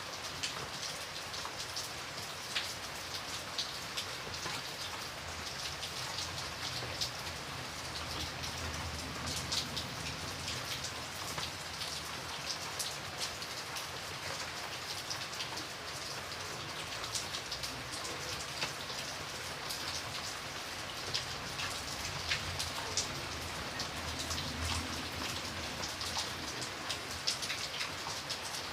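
Steady rain falling, a dense even hiss with many individual drops tapping sharply on a hard surface.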